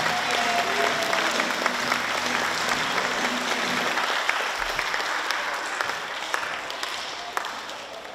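Audience of schoolchildren clapping, dying away over the last couple of seconds.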